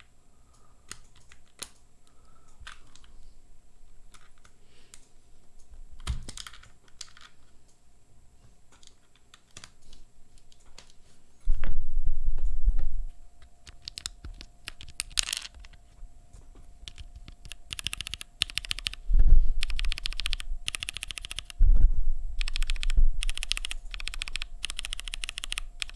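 Mechanical keyboard with linear switches (Hyperglide and vintage Cherry MX Blacks), aluminium plate and GMK keycaps, being typed on. For the first half there are scattered single keystrokes and clicks. From about halfway come loud bursts of fast typing with a deep bottom-out thud.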